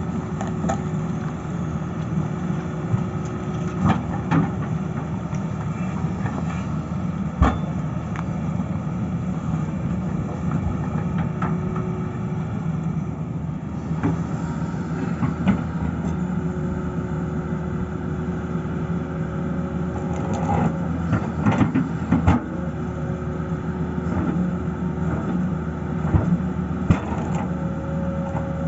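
Excavator's diesel engine running steadily, with occasional sharp knocks and cracks of rock under the bucket.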